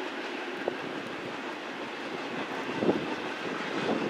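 Double-stack intermodal freight cars rolling past at steady speed: a continuous rumble of steel wheels on rail, with a few short clanks, the loudest about three seconds in.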